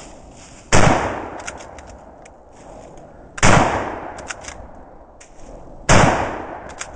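Three shots from a 1943 Mosin-Nagant M38 bolt-action carbine in 7.62×54R, about two and a half seconds apart, each followed by a long echoing tail. The bolt clicks as it is worked between shots.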